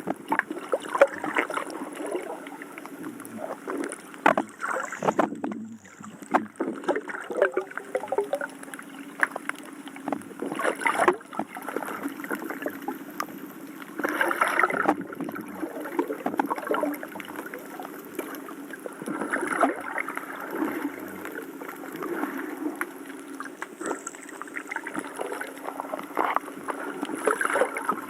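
Seawater sloshing and gurgling close to the microphone, in irregular surges, as a camera is carried through the sea while snorkeling.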